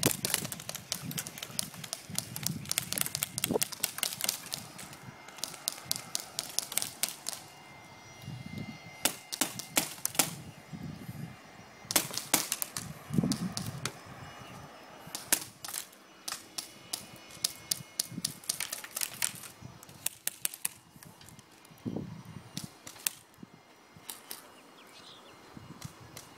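Airsoft guns firing in repeated rapid bursts of sharp clicking shots, each burst lasting one to two seconds, with scattered single shots in between.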